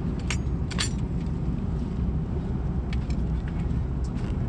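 Steady low drone of an Airbus A330-900neo cabin in flight. Near the start come two sharp handling noises about half a second apart, from a paper napkin and metal spoon being handled over a foil-covered meal tray.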